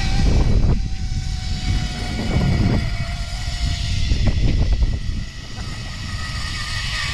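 Zipline trolley pulleys running along the steel cable with a steady whine, under heavy wind rumble on the microphone. The rumble eases about five seconds in.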